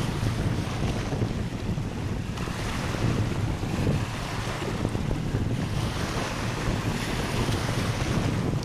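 Wind buffeting the microphone with a heavy low rumble, over sea surf washing onto a beach, whose hiss swells and fades in a few surges.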